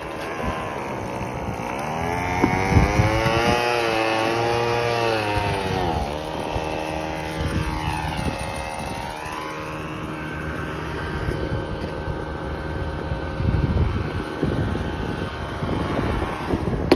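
Drone of a passing engine, its pitch sweeping up and down for a few seconds and then holding steady.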